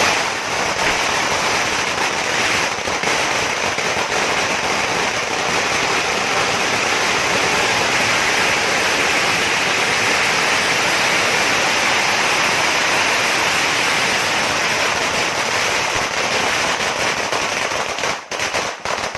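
Firecrackers going off in a dense, continuous crackle that breaks into separate sharp pops near the end.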